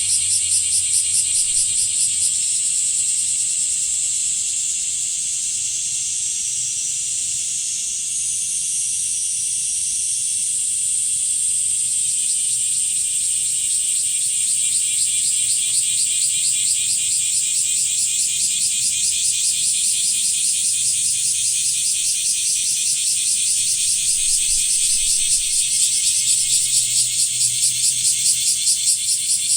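Blackish cicadas (kumazemi) calling in chorus: a loud, high, rasping buzz with a fast pulse that throbs and grows louder near the end.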